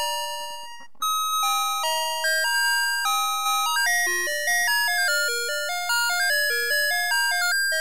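A Navystar Press N Go toy fire truck's electronic sound chip playing a tinny two-voice tune of stepping notes, each fading quickly. One phrase dies away and a new tune begins about a second in.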